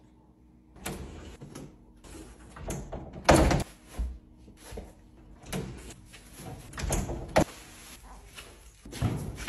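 A string of knocks, thumps and rustling from a person handling a baby car seat and going out through a door; the loudest is a sharp bang, like a door shutting, about three and a half seconds in.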